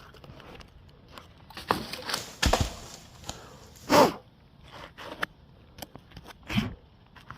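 Irregular scraping and rustling of a climber moving on a tree trunk, with a few knocks, a loud short breath about four seconds in, and a low thump near the end.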